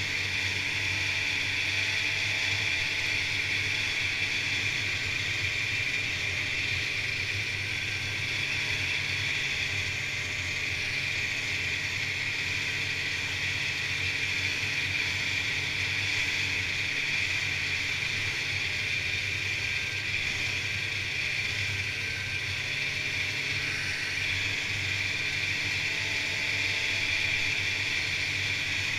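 Polaris Indy snowmobile's two-stroke engine running at an even cruising speed, with the whir of its track, steady throughout.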